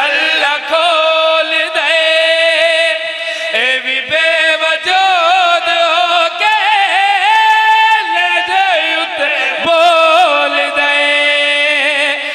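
A man's voice singing a line of mourning poetry in a slow, ornamented chant, holding long, wavering notes and turning the melody between them.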